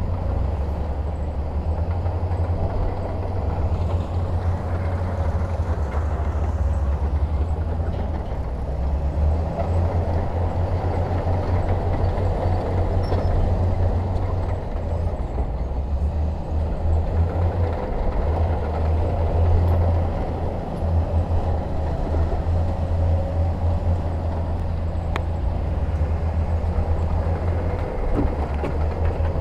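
Heavy diesel engine of earthmoving equipment running steadily under load, a deep low rumble with a rougher mid-range noise that swells and eases a little.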